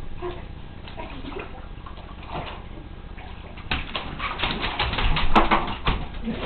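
Water splashing in a bathtub as a dog moves about in it: a few scattered splashes at first, then a quick, dense run of louder splashes from about halfway through.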